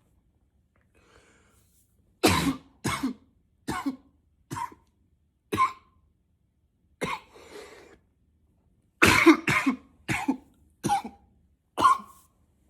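A man in a coughing fit, coughing hard in two runs of about five coughs each. The first run begins about two seconds in and the second about nine seconds in, with a single cough between them.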